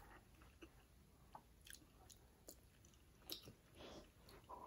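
Faint chewing of a mouthful of chicken nugget dipped in plain yogurt, with soft mouth clicks scattered through it.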